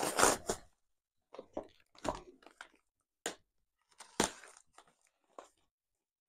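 Plastic bubble wrap and brown paper packing being torn open and crinkled by hand. A burst of rustling at the start, then short separate rips and crinkles that stop after about five seconds.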